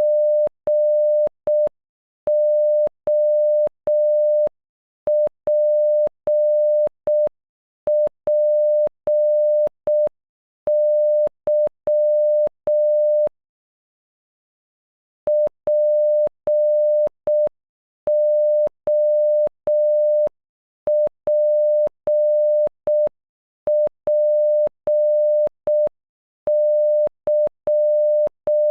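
Morse code sent as a pure tone of about 600 Hz, keyed in slow dots and dashes spelling "POPPY" (.--. --- .--. .--. -.--) at half speed. The word is played twice, with a pause of about two seconds between the two runs.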